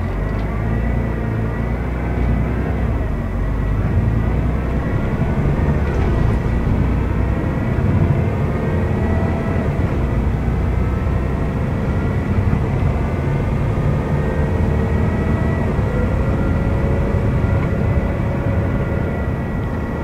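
Volvo B12BLE bus's inline-six diesel and ZF automatic gearbox, heard from inside the cabin as the bus pulls away and accelerates: a loud low engine rumble that rises sharply at the start, with a steady high whine over it. This is the bus's odd engine sound.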